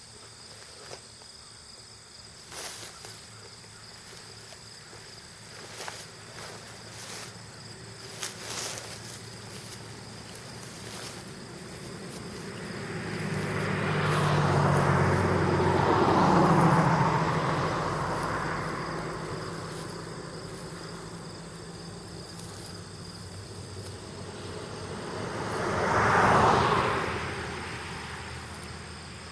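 Steady insect chorus in a summer field, with two vehicles passing at a distance: one swells up and fades away around the middle, and a second, shorter one comes and goes near the end.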